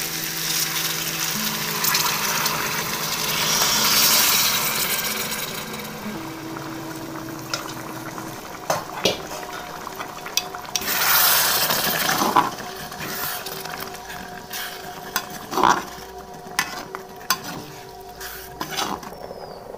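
Boiled tea water poured through a strainer into a hot steel pot of chickpea masala, sizzling and hissing for the first several seconds. A perforated steel ladle then stirs the pot, knocking against its sides now and then.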